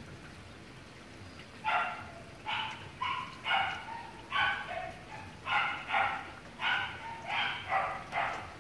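A dog barking repeatedly, about two barks a second, starting a couple of seconds in.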